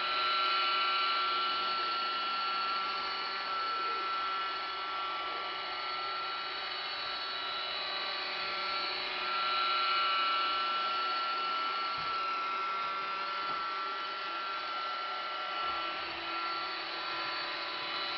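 Roomba robot vacuum running: a steady motor whine with several fixed high tones over a brushing hiss.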